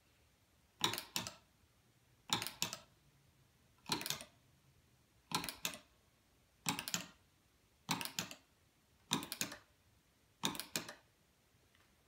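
Foot-switch pedals pressed by hand eight times, about once every 1.3 s. Each press gives a short cluster of sharp clicks as the pedal goes down and springs back, and each press adds one count on the wireless counters.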